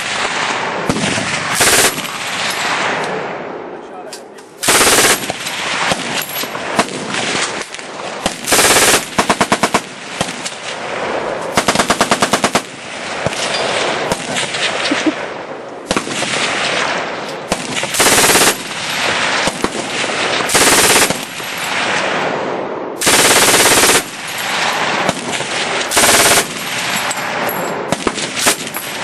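An MG15 machine gun in 8mm Mauser firing about nine short full-auto bursts at a very high rate of fire, around 1100–1200 rounds a minute, the longest burst lasting about a second. Quieter gunfire from other guns goes on between the bursts.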